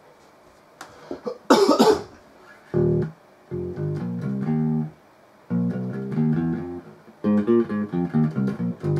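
Plucked string instrument played through a Belcat 25B bass guitar amplifier: short runs of notes, beginning about three seconds in with brief pauses between phrases, as a playing test that shows the reassembled amp still works. A brief loud noise comes about a second and a half in.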